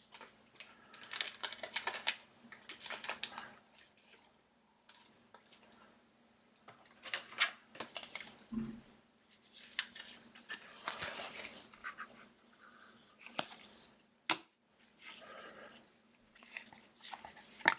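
Trading cards and their plastic sleeves and packs being handled on a table: irregular bursts of rustling, sliding and small clicks.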